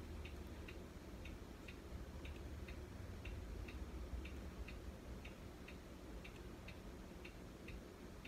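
A clock ticking faintly and steadily, about two ticks a second, over a low hum.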